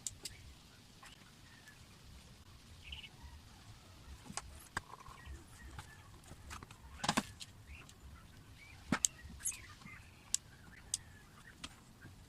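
Scattered sharp clicks and taps, irregularly spaced, the loudest about seven seconds in, over a low steady background rumble.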